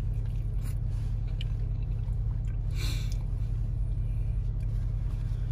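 Car engine idling with a steady low hum, heard from inside the cabin. A brief rustle comes about three seconds in.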